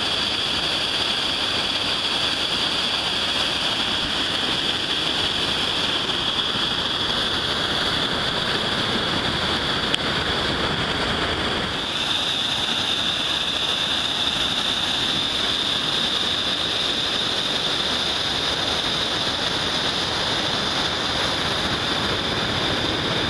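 Whitewater waterfall and rapids pouring over rock: a steady, loud rush of water, its tone shifting slightly about halfway through.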